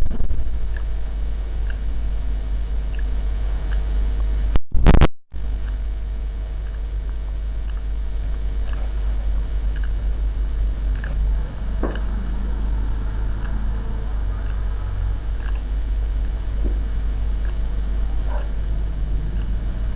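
Steady low rumble of background noise, with a few faint scattered clicks and a brief dropout about five seconds in.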